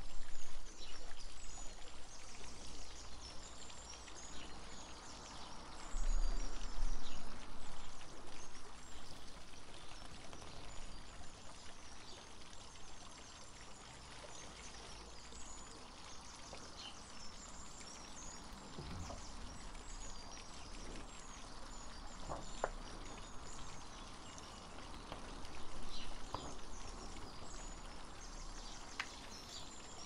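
Garden water fountain trickling steadily, with small birds chirping throughout and a few wind-chime tones in the second half. There are low rumbles just at the start and again about six seconds in.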